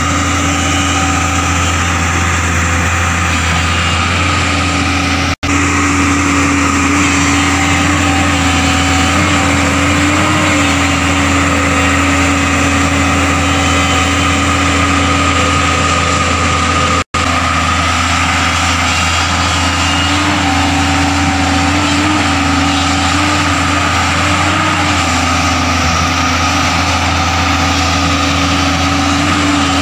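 JCB tracked excavator's diesel engine running steadily as the machine digs and levels earth, its note wavering slightly in pitch now and then. The sound cuts out for an instant twice.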